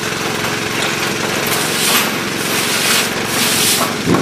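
Automated sheep-dip machine spraying: the nozzles hiss in two surges, about a second and a half in and again around three seconds, over the steady hum of the machine's pump motor.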